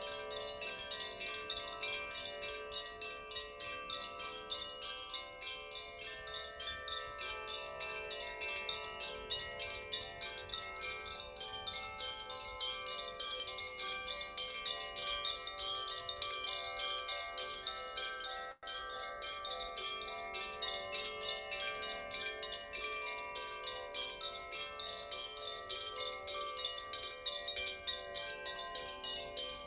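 Chimes and bell-like tones ringing together in a continuous rapid tinkling, with many sustained pitches overlapping; the sound drops out for an instant about two-thirds of the way through.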